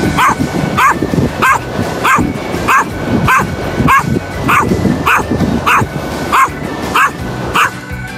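A dog barking over and over at an even pace, about three barks every two seconds, thirteen in all.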